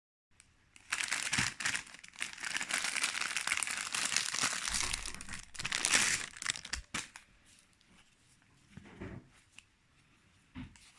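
Thin plastic packaging crinkling and rustling as it is handled, dense for the first several seconds, then a couple of sharp clicks and only faint rustles and a soft knock near the end.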